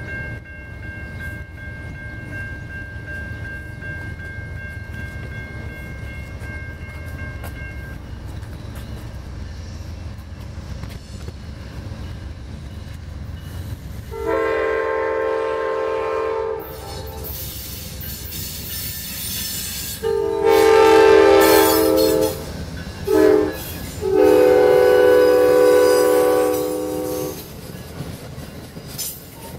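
Train locomotive's multi-chime air horn sounding the long-long-short-long grade-crossing signal over the steady low rumble of the train. A steady high ringing tone fades out about eight seconds in, before the horn starts.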